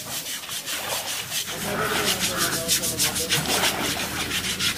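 A young elephant's hide being scrubbed by hand in shallow water: a rhythmic run of rasping scrub strokes, about four a second, starting about a second and a half in.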